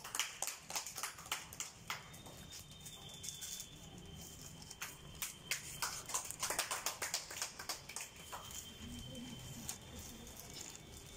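Scattered hand clapping from a small group of people, irregular sharp claps coming in two spells: the first two seconds or so, and again from about five to eight seconds in.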